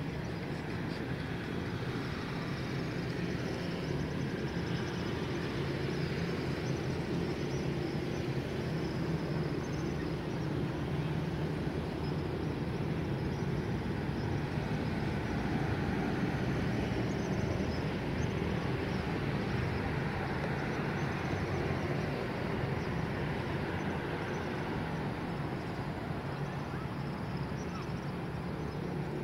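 Steady road-traffic noise from cars passing on the road around the monument, a continuous low rumble that swells slightly midway.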